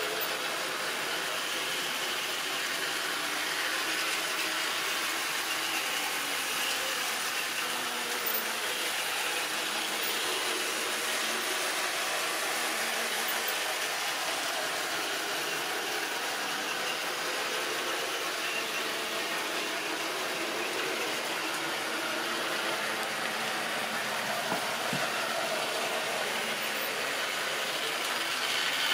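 Model railway train running steadily around the layout, the locomotive's small electric motor and the wagon wheels on the rails making a continuous mechanical running noise.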